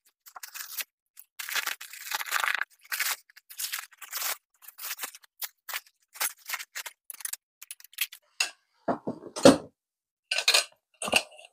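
Clear plastic wrap crinkling and rustling in quick, irregular bursts as it is pulled off a steel armour spaulder. A few louder knocks come near the end as the bare steel piece is handled.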